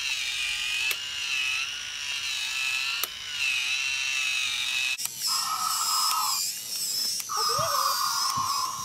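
Small electric gear motor of a remote-control toy T-Rex whining as the toy moves, with an occasional click. About five seconds in, the sound changes to a higher whine broken by three short held bursts of sound.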